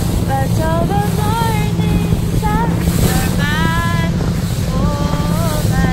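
Motorboat engine running steadily with wind buffeting the microphone, and a woman singing over it in held, sliding notes.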